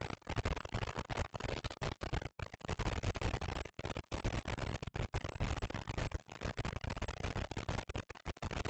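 Wind buffeting a trail camera's microphone: a rough, bass-heavy rush of noise that swells and drops irregularly, with many brief gaps.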